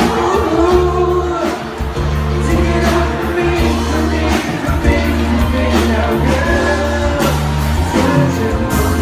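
Live pop music: a band playing with a singer singing over a steady bass line.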